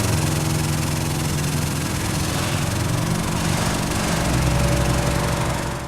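Subaru Forester's flat-four engine running at a steady speed, its level rising slightly about two thirds of the way in; the engine has a knock.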